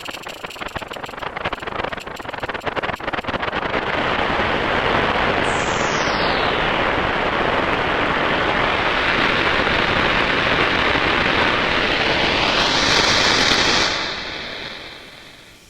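Planetarium, a four-layer granular instrument in UVI Falcon, playing a noisy synthesized texture. Crackling grains for the first few seconds swell into a dense wash of noise, with a falling sweep about six seconds in and a rising tone about twelve seconds in that then holds. The sound fades out near the end.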